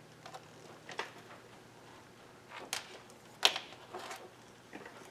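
A handful of short, light clicks and taps from an oscilloscope probe and clip leads being handled and clipped on onto wires on a workbench, the sharpest about three and a half seconds in.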